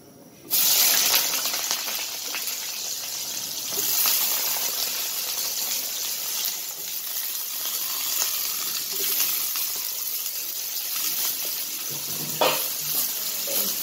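Sliced potatoes and pointed gourd dropped into hot cumin-tempered oil in an iron karahi: a sudden loud sizzle about half a second in that settles into steady crackling frying. One short knock near the end.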